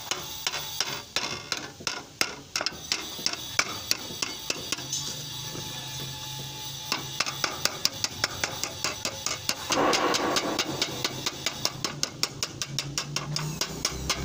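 Ball-peen hammer tapping a thin sheet-metal strip down against a wooden block, folding over its edge. Irregular taps at first, then a quick steady run of about three light taps a second.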